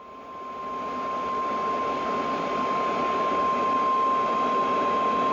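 NOAA Weather Radio warning alarm tone, the single steady 1050 Hz beep, heard through a weather radio with static hiss that swells up over the first second or two. The tone is the signal that a warning broadcast is about to follow.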